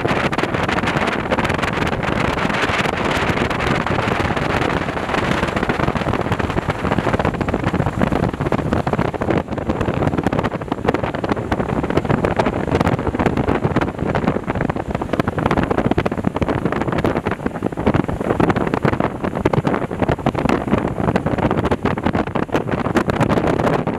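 Steady rushing noise of a Boeing Jetfoil 929-100 gas-turbine waterjet hydrofoil running foilborne at high speed, mixed with water spray and wind buffeting the microphone.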